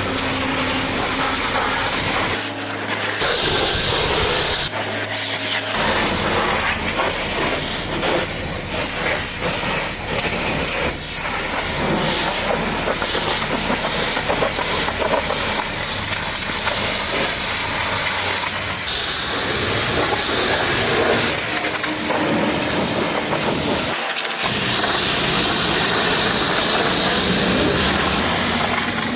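Pressure washer spraying a steady high-pressure jet of water, a loud continuous hiss that changes abruptly a few times.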